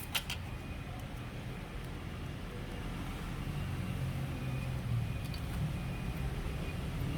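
Steady low rumble of background road traffic, with a couple of small sharp clicks right at the start.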